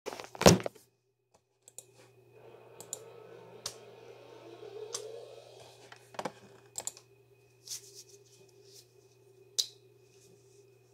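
Handling noise from a phone being set up for recording: a loud knock about half a second in, then scattered light taps and clicks over a faint steady hum.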